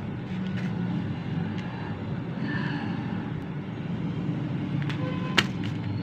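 A few sharp plastic clicks from a Targus USB numeric keypad being handled and a key pressed, the loudest about five and a half seconds in, over a steady low background rumble.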